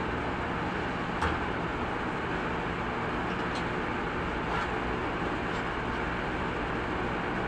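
Steady mechanical hum and hiss of workshop background noise, with four light clicks of metal parts being handled on the car's stripped front end.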